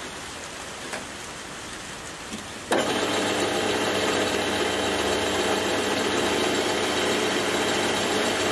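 Metal lathe switched on about three seconds in, running steadily with a mechanical hum while taking a cut on a small steel pin, then switched off abruptly near the end.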